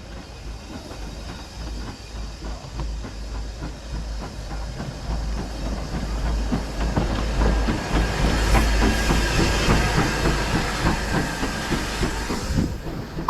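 Steam locomotive moving close by, with steam hissing and wheels clattering on the rails. The sound grows louder to a peak about two thirds of the way through, then eases.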